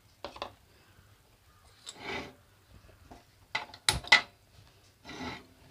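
Gas stove burner being lit with a hand-held spark lighter: a few sharp clicks about four seconds in, the loudest sounds here. Softer knocks and short scraping noises come before and after them.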